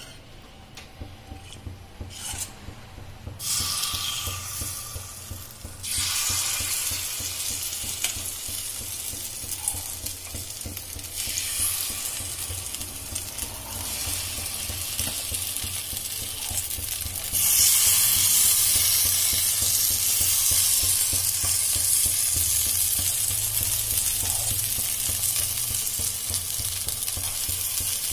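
Semolina appe batter sizzling in hot oil as it is spooned into the cavities of an appe pan. A few light clicks of the spoon come first, then the sizzle starts a few seconds in. It gets louder in steps as more batter goes in, and is loudest over the last third.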